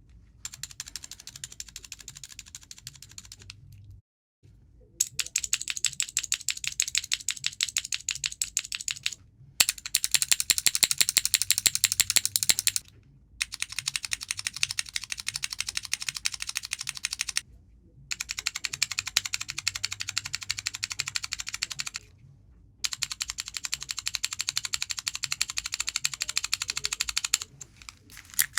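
Mechanical keyboard switches on a Clickybits fidget switch tester being pressed in rapid succession, a dense run of clicks. The clicking comes in about six runs of several seconds each, broken by brief pauses, some runs louder and brighter than others.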